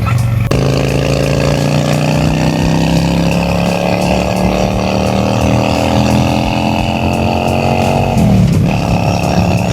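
Honda Shadow V-twin cruiser engine running under way, its note climbing slowly for several seconds and then dropping suddenly near the end.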